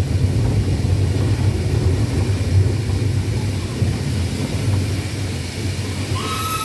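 Small steam tank engine running, heard from the cab: a steady heavy rumble of the engine and wheels on the track. Near the end, a steady whistle blast starts.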